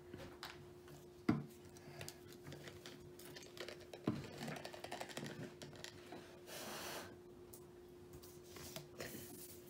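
Faint scattered clicks and knocks of small objects being handled on a table, the sharpest about a second in, over a faint steady hum.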